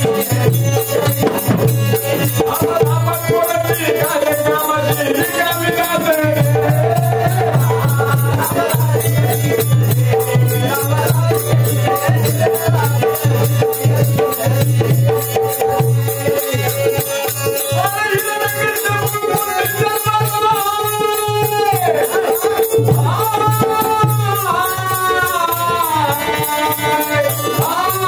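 Marathi shahiri folk song: a singer's voice in long melodic lines over a fast, even percussion beat and a steady low drone.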